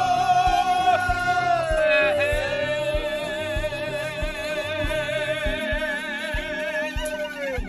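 A Chinese toasting song with the singer holding one long note with vibrato, stepping down once about two seconds in, over a steady beat.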